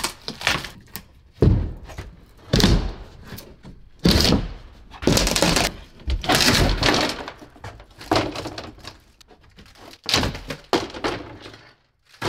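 Glued-in wood being pried and broken off inside a van: a run of cracks and thuds, some of them drawn out into crunching that lasts about a second.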